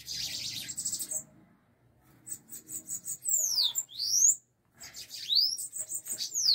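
Bananaquits (sibites) calling during a fight: a dense, buzzy high rattle in the first second, then high chattering notes and quick whistled sweeps, falling then rising, in two bouts about three and five seconds in.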